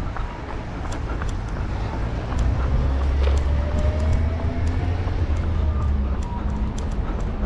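Road traffic passing close by: a vehicle's low rumble swells about two seconds in and eases off near six seconds, with a faint slowly rising tone. Over it come the runner's own footfalls, a steady run of short taps.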